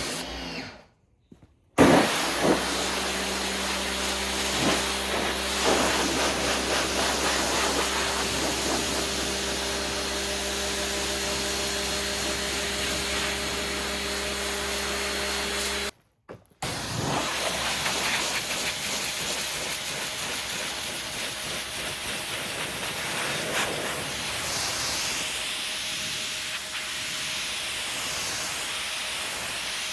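Vevor 2000 PSI electric pressure washer running and spraying water: a steady hiss of spray over the motor's hum. The sound cuts out briefly about halfway, then the spray hiss goes on without the hum.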